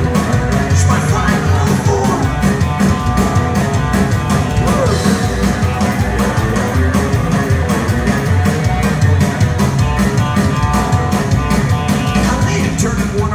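Psychobilly rock-and-roll band playing loud and fast live, with an electric hollow-body guitar over drums keeping a fast, steady beat.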